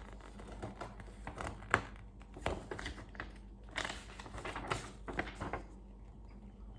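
Model kit packaging being handled: scattered light clicks and several short crinkling rustles of plastic bags and paper.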